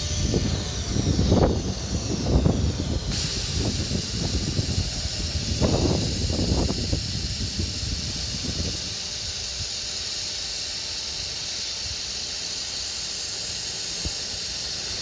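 CNC router running its automatic tool change and tool-length measuring cycle: heavy mechanical knocks and clunks in the first seven seconds or so. A steady hiss of compressed air comes on suddenly about three seconds in and keeps going; it is the air blast that cleans the tool before it is measured.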